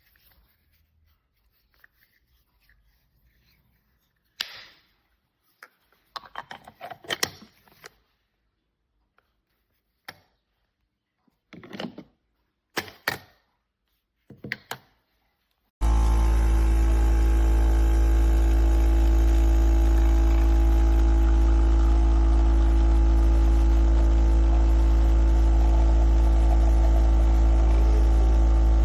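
A few scattered clicks and knocks of handling, then about sixteen seconds in an Empstorm 20-bar espresso machine's pump starts abruptly. It runs with a loud, steady hum and a hiss on top.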